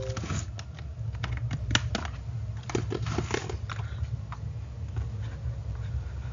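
Computer keyboard keys clicking in short, irregular runs over a steady low electrical hum.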